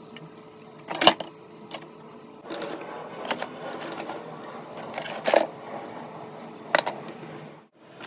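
Objects being handled in a hamster cage: four sharp knocks and clicks a second or two apart, over a rustling of paper bedding.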